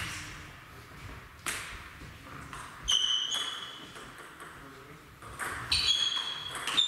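Table tennis rally: the ball clicks sharply off bats and table, a couple of single hits early on, then quicker exchanges near the end, along with a few short high-pitched squeaks.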